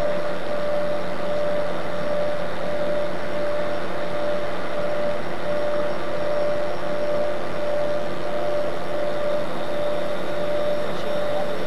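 Steady engine drone with a constant mid-pitched hum, unchanging in level.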